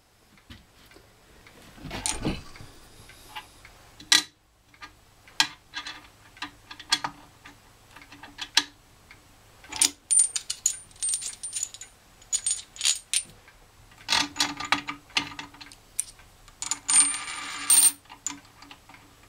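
Steel hold-down clamps, studs and nuts clinking and clattering on a drill press's metal table as the workpiece is clamped down, in many short sharp clicks with a dull knock about two seconds in. There are ringing bursts of clatter about ten seconds in and, loudest, near the end.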